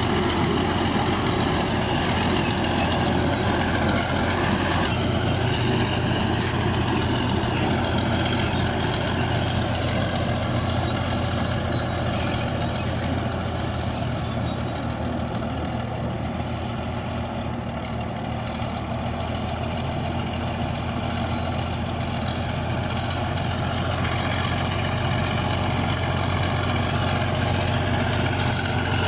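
Bulldozer's diesel engine running steadily, its pitch shifting slightly about five seconds in and the level easing a little in the middle before rising again.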